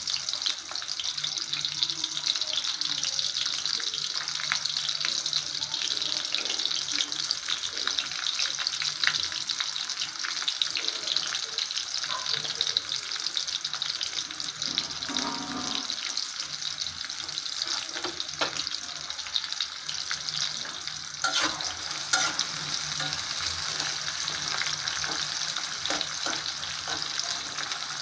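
Sliced onion and garlic sizzling in hot oil in an aluminium pot, a steady sizzle full of small crackles, with a spatula stirring and scraping through them.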